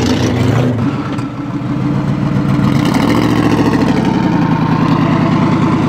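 Twin-turbo Ford Coyote 5.0 V8 idling with a steady, pulsing exhaust note; its pitch rises a little and falls back about three seconds in.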